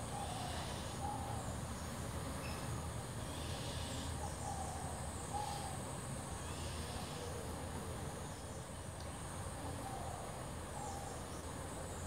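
Forest birds calling, with short hooting notes repeated every second or two over a steady high-pitched insect drone.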